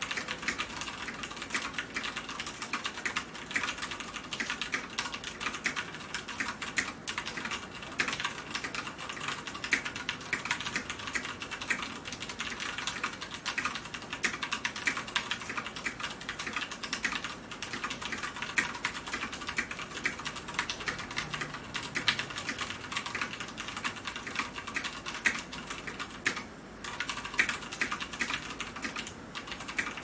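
Continuous typing on a KBP VX80 tenkeyless mechanical keyboard with Cherry MX Brown switches: a dense, uneven stream of keystroke clacks, with a short pause near the end.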